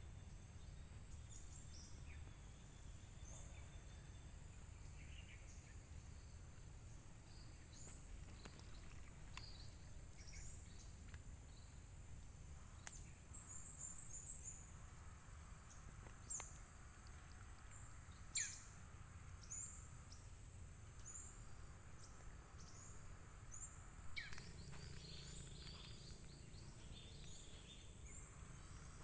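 Faint riverside forest ambience: a steady high-pitched insect drone, with many short falling bird chirps scattered through it and a few louder ones past the middle, over a low rumble.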